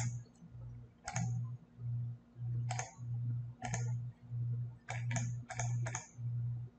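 A few sharp computer mouse clicks, spaced irregularly, over a low hum that pulses on and off about twice a second.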